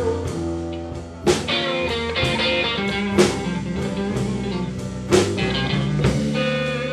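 Live slow blues played on an electric guitar and an acoustic-electric guitar together, with no singing. Sharp, hard-struck accents come about every two seconds over ringing notes.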